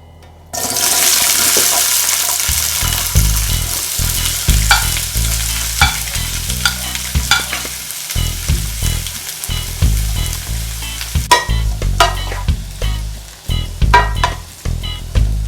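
Sliced bell peppers hitting hot coconut oil in a pan, sizzling suddenly about half a second in and frying on, with a utensil clicking and scraping against the pan as they are stirred.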